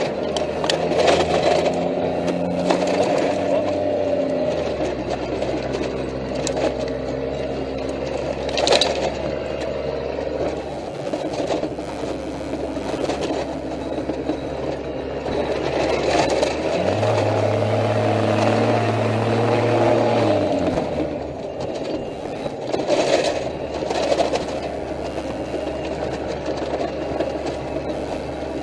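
Armored military patrol vehicle's engine running on the move, its note shifting as it changes speed, with a deeper, stronger stretch about two-thirds of the way through. Rattles, scrapes and a few sharp knocks come from the gun turret and its fittings jolting over rough ground.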